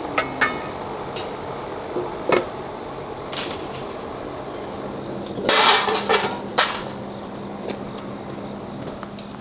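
Stainless steel feeding bowls clinking and clanking as they are handled and stacked, with a few single knocks and a louder run of clatter a little past the middle.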